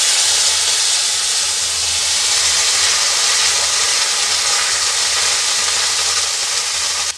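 Water poured into a kadai of hot oil and fried tempering (curry leaves, green chillies, mustard seeds), flashing to steam with a loud, steady hissing sizzle. The hiss cuts off suddenly near the end.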